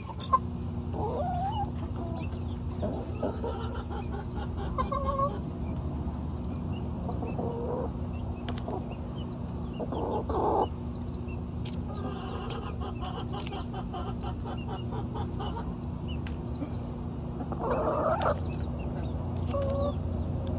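Chickens clucking at close range, with short scattered calls now and then while they eat apples. A few sharp clicks sound in between, over a steady low hum.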